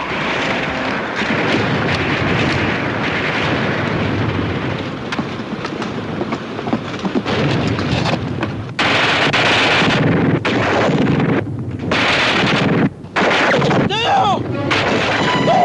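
Battle sound effects: sustained gunfire with explosions.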